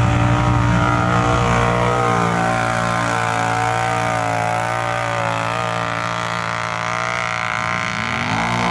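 Mud ATV engine running steadily at a nearly constant pitch, then revving up near the end.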